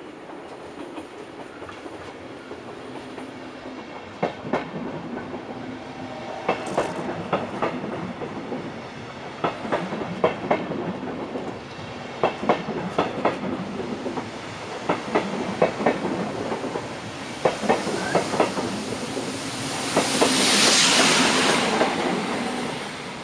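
Red regional train of single-deck coaches rolling past close by, its wheels clicking over rail joints in pairs and small groups over a steady rumble. Near the end a louder rushing hiss swells and fades as the last vehicle goes by.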